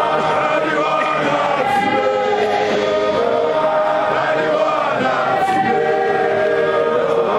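Large choir of men singing a hymn in Shona, many voices together in long held notes.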